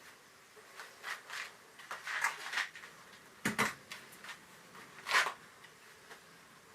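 A handful of light clicks and knocks with short scraping sounds, as of objects being handled. The loudest are a knock about three and a half seconds in and a scrape about five seconds in.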